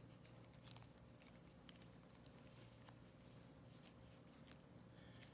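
Near silence with faint, scattered light clicks and rustles: a dry cleaning patch being rubbed along a Sig Sauer P938 magazine's coil spring to dry off the solvent. A slightly louder pair of ticks comes about four and a half seconds in.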